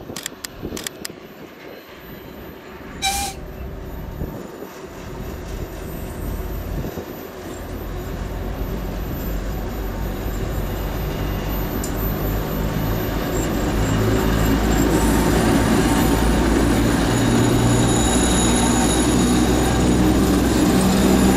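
2M62 twin-section diesel locomotive approaching under power with a long train: the low diesel engine rumble grows steadily louder and then holds loud as the locomotive draws alongside. A short, high toot sounds about three seconds in.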